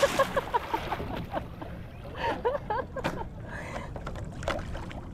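Paddling on a lake: water sloshing against a small paddle craft, with sharp knocks of the paddle on the hull and short squeaky chirps in the first few seconds.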